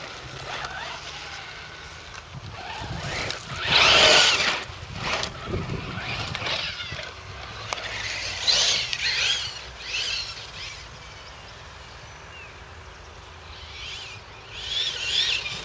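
Electric Losi 8ight TE RC truggy with a Tenshock X812L brushless motor running at speed, its motor and gear whine rising and falling in pitch. It is loudest about four seconds in, as it passes close, with more bursts of whine between about eight and ten seconds in.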